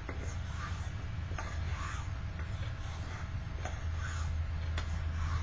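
Straight razor blade stroked across a wet 12,000-grit whetstone: a soft scraping swish repeating about once a second, with a light click between strokes. A steady low hum runs underneath.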